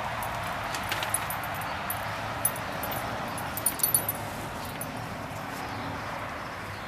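A Great Dane walking on patio paving stones, its claws and paws making a few scattered light clicks and scuffs, most of them in the first four seconds, over a steady outdoor hiss. The dog walks with the sliding, unsteady 'cross-country ski' gait caused by degeneration of its spinal cord.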